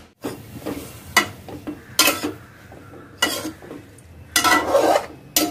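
A metal ladle stirring and scraping chopped greens as they fry in a pan, with sizzling: a handful of separate strokes, the longest near the end.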